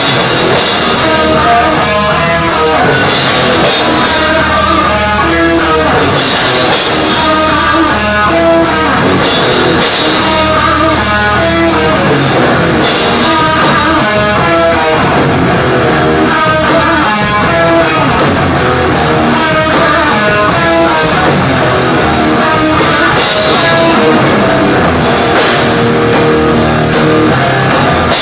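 Live thrash metal band playing loud: distorted electric guitar on a repeating riff over a rock drum kit, with constant cymbal wash.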